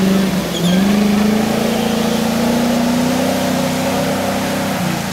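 Off-road 4x4's engine under hard throttle as it pulls away, dipping briefly about half a second in and then climbing steadily in pitch before easing off near the end.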